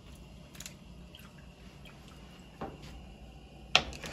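Quiet kitchen stretch with a soft knock of kitchenware, then two sharp clacks near the end, the first the loudest, as utensils and cookware are handled.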